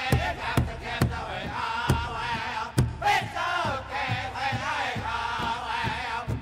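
Powwow drum and singers: a group of male voices singing high, wavering chant-like lines in unison over a steady bass drum beat, about two strokes a second.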